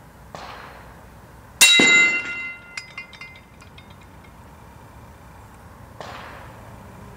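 Ruger SR556 AR-15 firing 5.56 rounds at galvanized steel plates: two sharp shot reports with a decaying echo, one early and one near the end. About a second and a half in, the loudest sound is a bullet striking a steel plate, a sharp clang that rings on in several clear tones and fades over about a second.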